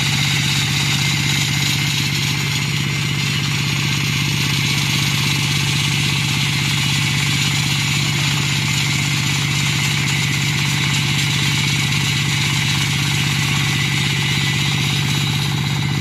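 The 38 HP diesel engine of a tracked concrete floor saw runs steadily under load while its blade cuts wet concrete. It gives a constant low engine drone with a steady high grinding hiss from the blade on top.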